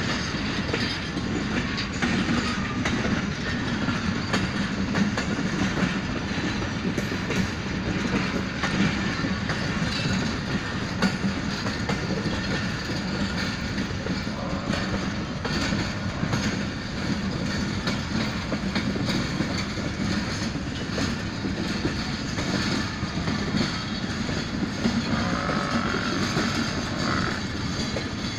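Sukkur Express passenger coaches rolling past close by, a steady rumble with the clickety-clack of wheels over the rail joints.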